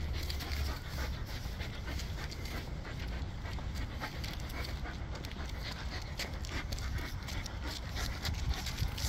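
A dog panting quickly and steadily while it pulls ahead on its leash, with a low rumble underneath.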